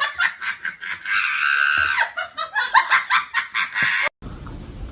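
A person laughing hard in quick, rapid bursts, with a drawn-out high-pitched squeal about a second in. It cuts off abruptly about four seconds in.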